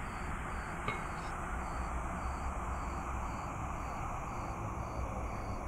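Steady low ambient rumble with a hiss over it, and one faint click about a second in.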